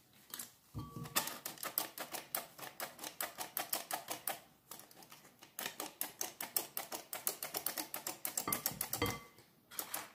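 Stainless steel hand-operated flour sifter clicking rapidly, about five clicks a second, as its handle is worked to sift flour into a bowl. The clicking breaks off for about a second midway, then starts again.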